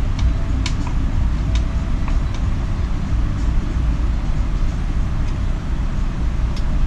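A steady low background rumble, with a few light clicks as small metal parts of a chainsaw's carburetor and linkage are handled and fitted.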